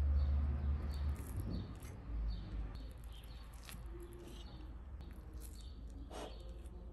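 Small birds chirping in short, repeated calls over a low hum that is strongest in the first second. Two light clicks, about halfway through and near the end, come as a fork cuts into cake on a plate.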